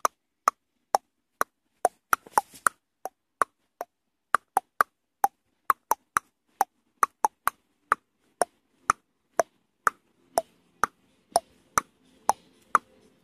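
Footsteps on a dry dirt forest path, each step a sharp click, about two a second at a walking pace. Faint background sound comes up in the last few seconds.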